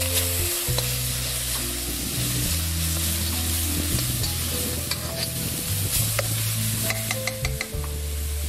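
Hot oil sizzling steadily in a kadhai as cumin seeds fry, then a wet onion, ginger, garlic and chilli paste frying, with a few sharp ticks about five and seven seconds in. Background music with a low bass line plays underneath.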